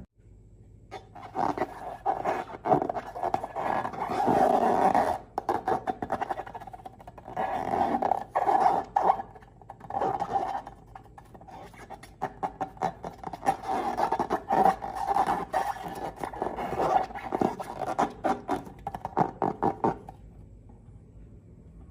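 Slime and rubber balloons handled by hand: irregular spells of sticky crackling, squelching and rubbing, with short lulls, dying away near the end.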